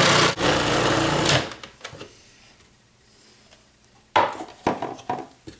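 Electric food processor running as its shredding disc grates cabbage, switched off about a second and a half in and spinning down. Near the end come a few sharp plastic clicks and knocks as the machine's lid and bowl are handled.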